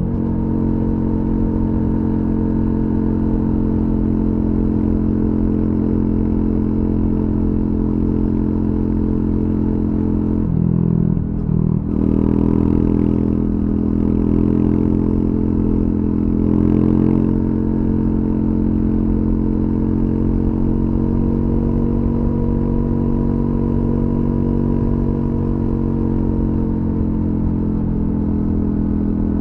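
Triumph Scrambler 400X's single-cylinder engine through its stock exhaust, running steadily while riding on an open road. There is a short break in the engine note about eleven seconds in, then it settles back into a steady note.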